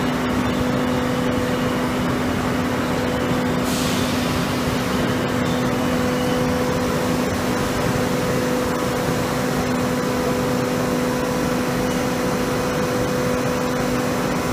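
Concrete block-making plant machinery running with a steady hum over an even mechanical noise, with no distinct strokes or impacts.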